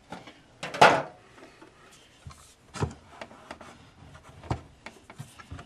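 Heavy marble rolling pin rolling tortilla dough over a wooden cutting board: a soft rubbing roll with scattered knocks and clacks of the pin on the board, the loudest about a second in.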